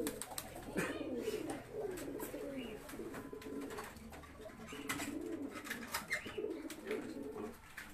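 Several domestic pigeons cooing over and over, their calls overlapping, with light clicks and rattles from a wooden-and-wire loft cage door being handled.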